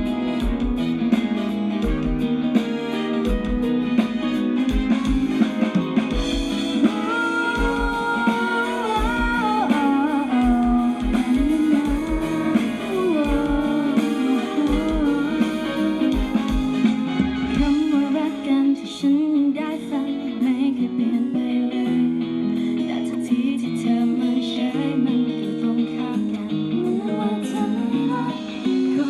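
Live pop band music over a concert sound system, led by guitar, with a steady kick-drum beat that drops out about two-thirds of the way through.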